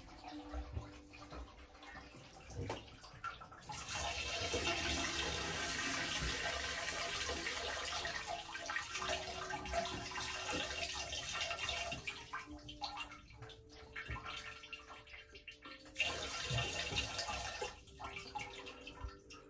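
Water gushing and rushing in two spells: a long one of about eight seconds starting a few seconds in, then a shorter burst near the end. A faint low hum of steady tones sits underneath.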